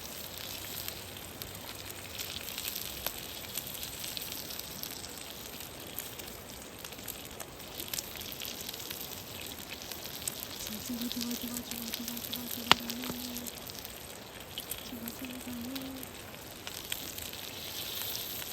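Kalbi beef sizzling on a grill over a fire pit's wood fire, with a steady hiss, scattered crackles, and one sharp pop about two-thirds of the way through.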